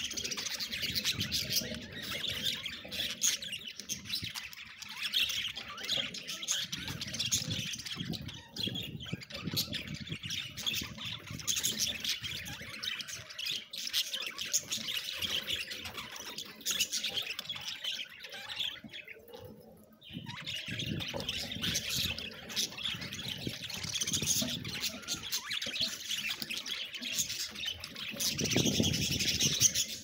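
A flock of budgerigars chattering and chirping together, a continuous busy warble of many birds, with a brief lull about two-thirds of the way through. A low rumble comes in near the end.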